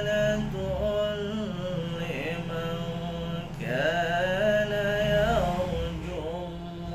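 A man chanting a Quranic verse in Arabic in a slow melody. He draws the syllables out into long notes that slide up and down, with one long held note in the middle.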